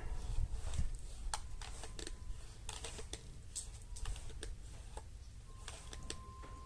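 Irregular light clicks and knocks over a low rumble, with a faint steady high tone starting near the end.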